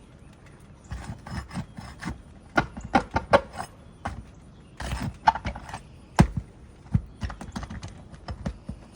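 A roof snake worked under asphalt shingles, making irregular scraping, crackling and sharp knocks as it rips through the shingle fasteners. The sounds start about a second in, and the sharpest knock comes about six seconds in.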